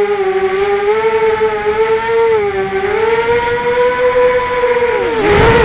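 Brushless motors and 5040 props of a 250-size racing quadcopter whining in flight, heard from its onboard camera. The pitch drifts up and down with the throttle. About five seconds in it dips sharply with a brief rush of noise, then climbs again.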